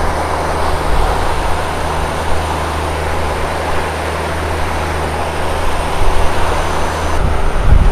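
A fishing boat's engine running steadily while under way, under a constant rush of wind and water over choppy waves. There are low buffeting thumps of wind on the microphone near the end.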